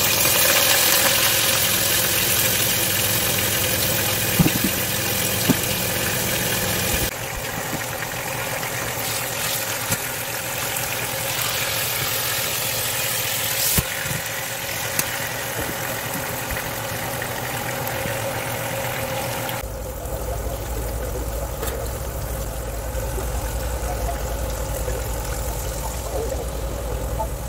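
Chuck roast searing in hot oil in a pot: a steady sizzle, with a few sharp clicks of metal tongs against the pot. Near the end the sizzle dies down and a low steady hum comes in.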